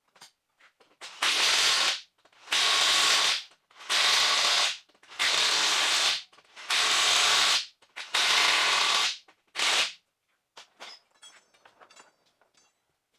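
Impact wrench running in six loud bursts of about a second each, one per lug nut, spinning on the lug nuts of a Silverado front wheel. A few light clicks follow near the end.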